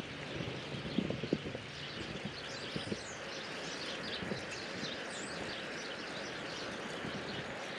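Steady rush of wind and road noise from riding a bicycle, with a run of quick, high bird chirps in the middle and a few knocks about a second in.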